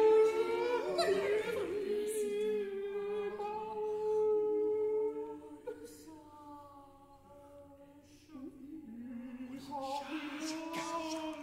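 Six unaccompanied voices singing long held notes, several pitches sounding together. The voices thin out and fade to a quiet stretch near the middle, then swell back in about eight seconds in.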